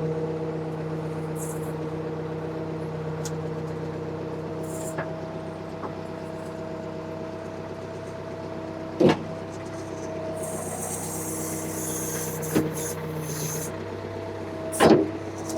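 Ford 555C backhoe's diesel engine running steadily under light hydraulic load as the stabilizers and boom are worked, its pitch shifting a little. Three sharp knocks come through it, the loudest near the end.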